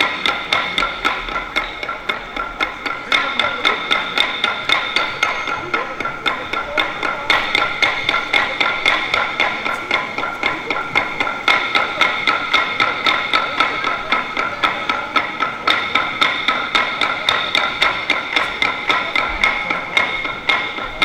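Dadeumi, Korean wooden laundry-beating clubs, striking a smoothing stone in a fast, even rhythm of about four hard wooden clacks a second, played as a percussion performance. Steady high ringing tones sound along with the beating.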